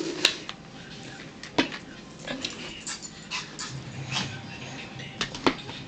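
A dog whimpering quietly, with a few sharp clicks of plates and cutlery on the table.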